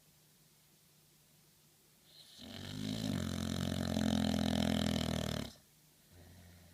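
Dog snoring in its sleep: one long snore of about three seconds, starting about two seconds in and stopping abruptly, then a faint short breath near the end.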